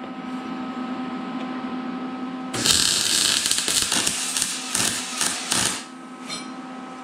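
Arc welder welding the car's steel firewall and Z-bar, a crackling hiss of the arc. It is quieter at first, louder from about two and a half seconds in with a few short breaks, and stops about six seconds in, over a steady hum.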